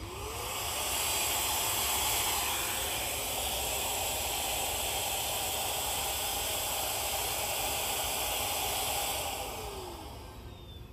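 MECO ME-CR1 cordless vacuum running, sucking small hive beetles off a hive frame: a steady rushing hiss of air over a faint motor whine. It spins up right at the start and winds down about ten seconds in.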